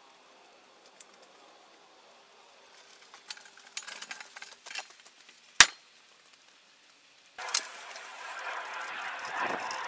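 Old steel floor crane being pulled by its handle over gravel: its frame and small steel wheels rattle and clank, with one sharp metallic clank about halfway through. Near the end a louder, steadier noise with rattles sets in suddenly.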